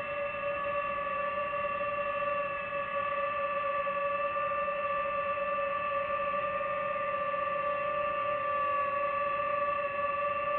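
DJI FPV drone's motors and propellers whining steadily in cruising flight: one held pitch with several overtones that wavers only slightly.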